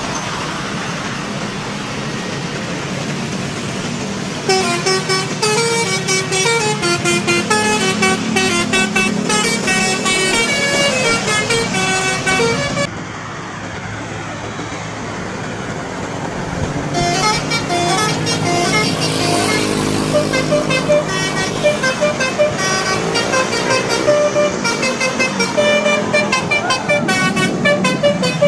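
Bus telolet horn, a multi-tone air horn, playing rapid sequences of changing notes over bus engine and road noise. The horn starts about four seconds in, stops for a few seconds near the middle, and plays again from about seventeen seconds in.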